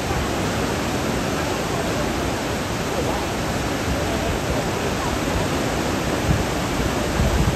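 Steady rushing of white water pouring over a river weir and churning in the hydraulic below it.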